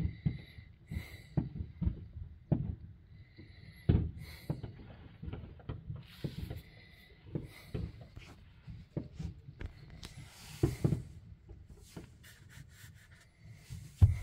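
Fireworks going off at a distance: an irregular run of booms and pops, several a second at times, with quick crackling clusters near the end.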